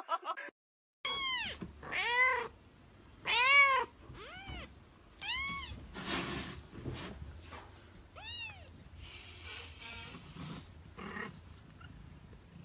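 Kitten mewing: about six high calls, each rising then falling in pitch, over the first eight or so seconds, followed by softer noisy sounds.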